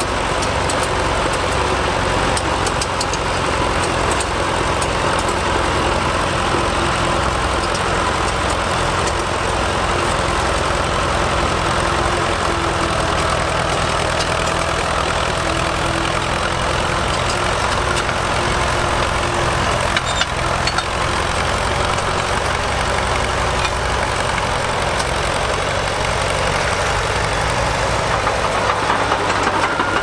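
Fordson County crawler bulldozer's engine running steadily under load as the machine pushes soil with its blade.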